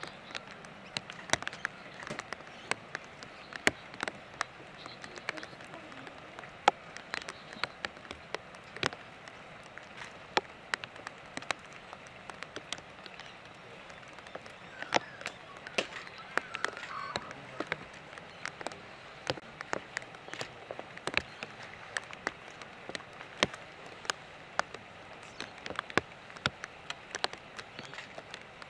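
Light rain: raindrops ticking irregularly and sharply, a few each second, over a soft steady hiss.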